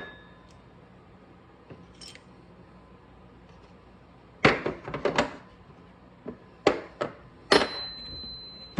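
Metal hole saw and arbor parts clinking and knocking as they are handled, in a few quick clusters of clicks from about halfway through. The last knock leaves a thin metallic ring.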